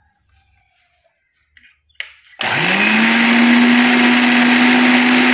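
Electric mixer grinder with a stainless steel jar, pulsed to blend egg, oil and lemon juice into mayonnaise: a switch click about two seconds in, then the motor spins up quickly and runs loud and steady.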